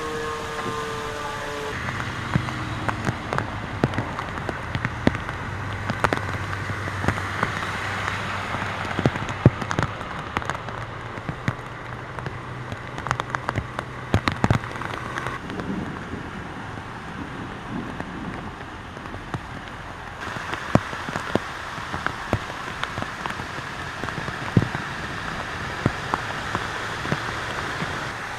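Heavy rain falling: a steady hiss dotted with many sharp taps of drops striking.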